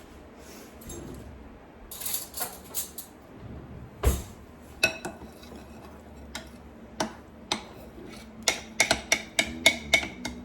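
A spoon clinking and tapping against a dish as sticky topping dough is spooned out. The clinks come scattered, with one heavier knock about four seconds in, and faster over the last couple of seconds.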